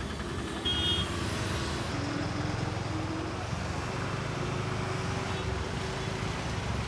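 Trucks and cars running slowly through flood water on a highway, a steady low engine rumble with a noisy wash over it. A short high-pitched beep sounds about a second in.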